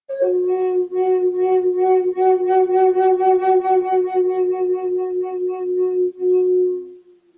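Long wooden end-blown flute holding a single low note with an even pulsing vibrato for about seven seconds, after a short higher grace note at the start; the note fades out near the end.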